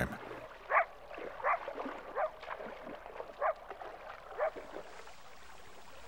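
Coyotes giving a series of about five short barks, roughly a second apart, each dropping in pitch. These are alarm barks that rally the pack at the den and intimidate an intruding wolf.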